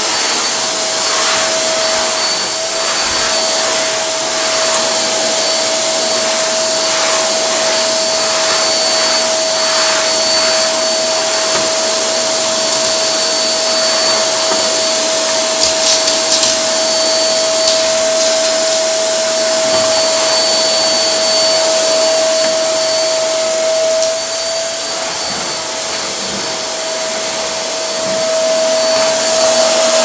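Vacuum cleaner running continuously, its floor nozzle worked over a wooden floor, with a steady whine over its motor and suction noise. It gets a little quieter late on and then comes back up.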